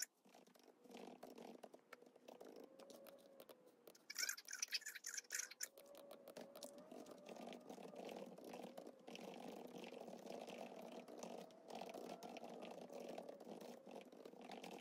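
Laptop keyboard being typed on: a run of soft, quick key clicks, with a louder flurry about four seconds in.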